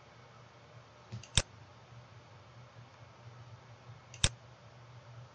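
Two sharp computer-mouse button clicks, about three seconds apart, each with a fainter tick just before it, over a faint steady low hum.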